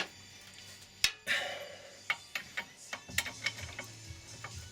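Ratchet wrench with a 19 mm socket clicking in short runs on the propshaft flex-coupling bolts, after one sharp metallic knock about a second in.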